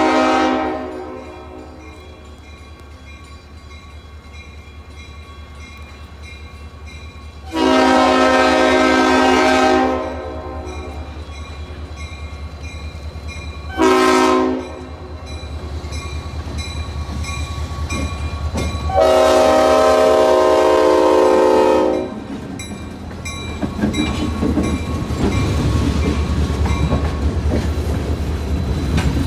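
Diesel locomotive air horn sounding the grade-crossing signal: the end of one long blast about a second in, then a long blast, a short one and a final long one, several seconds apart. A railroad crossing bell rings between the blasts. Near the end the locomotive's engine and its wheels clacking over the rails grow louder as it reaches the crossing.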